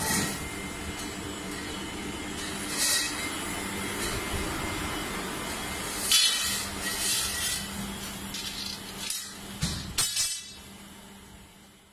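Thread-rolling machine running steadily, with several sharp metallic clinks of steel threaded rods striking one another. The sound fades away near the end.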